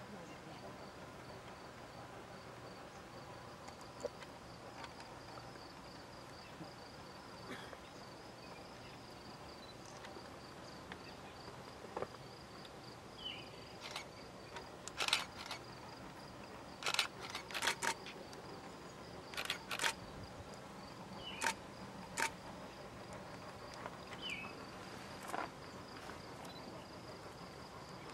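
Quiet summer countryside ambience: a faint, steady, high insect trill, with scattered short clicks and small chirps that grow more frequent in the second half.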